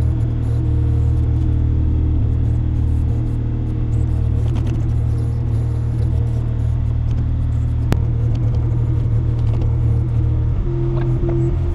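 Takeuchi TB235-2 mini excavator's diesel engine running steadily with a low drone, heard inside the cab while the boom digs. There is a single sharp click about eight seconds in, and the drone changes pitch near the end.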